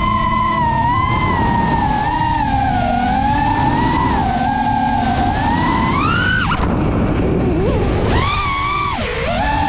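FPV racing drone's brushless motors whining, the pitch sliding up and down with the throttle. It climbs sharply just past halfway, then drops away as the throttle is cut, and comes back about a second and a half later.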